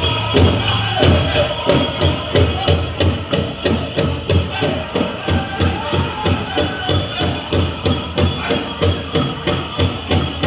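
Powwow drum group singing a chicken dance song: the big drum is beaten steadily about three times a second under high-pitched group singing.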